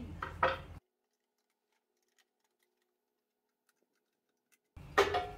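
Screwdriver prying at the stuck lid of an old decking-oil tin, sealed for years: a sharp metal click about half a second in and a loud ringing metal clink near the end. In between, the sound drops out to silence.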